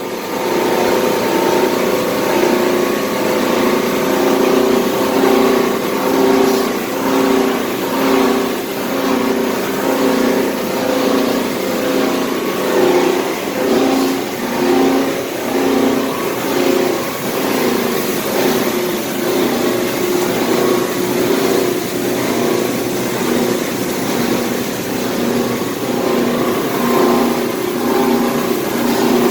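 Cable Management C2 wire chopping system with turbo mill running, a loud machine hum with several steady tones that swells and eases about once a second.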